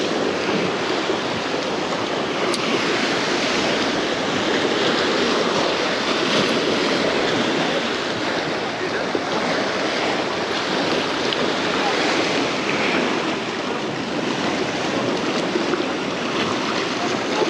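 Choppy surf washing and breaking against the stone blocks of a jetty, a steady rushing, with wind on the microphone.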